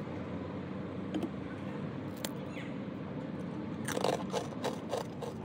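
Crispy fried rice crackers (bay kdang) crackling and snapping as they are broken apart and handled by hand: a few sharp cracks, then a short crunchy cluster about four seconds in, over a steady low background hum.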